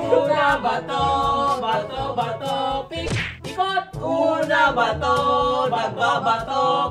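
Music with a singing voice and a steady beat, and a whooshing sweep about three seconds in.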